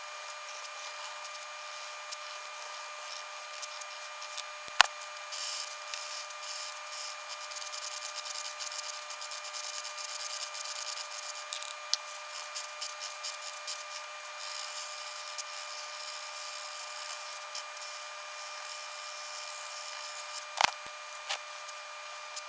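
Fast scratching and rubbing of a pencil and a chisel-tip marker on grid paper over a steady high hum, with a sharp click about five seconds in and another near the end.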